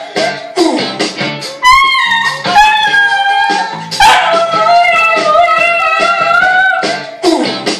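Smooth fox terrier howling in several long, wavering notes, with music playing underneath.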